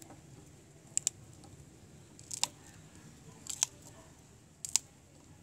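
Fresh green chillies being snapped into pieces by hand: four short, sharp snaps a little over a second apart.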